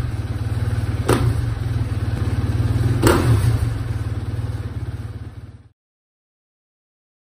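KTM 450 SX-F single-cylinder four-stroke engine running at low revs through an FMF Q4 Hex muffler, with two sharp cracks about two seconds apart. It then fades away and stops, leaving silence.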